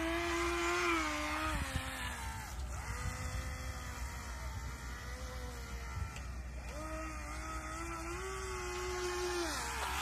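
Electric motor of a small battery-powered Vector XS RC speedboat whining as the boat runs across the water. The pitch follows the throttle, dropping about two seconds in, climbing again in the second half, and falling near the end.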